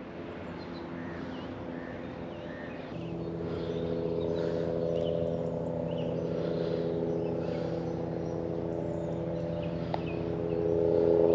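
A steady motor hum with several pitched tones. It sets in about three seconds in and grows louder toward the end, with faint bird chirps above it.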